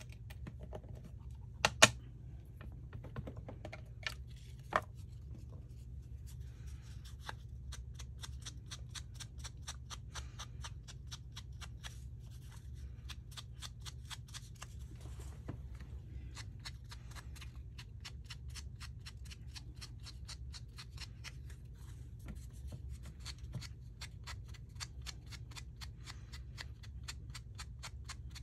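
Rapid, even light tapping on paper, about four taps a second, as ink is dabbed onto small paper-pieced figures. A few sharp clicks come in the first five seconds.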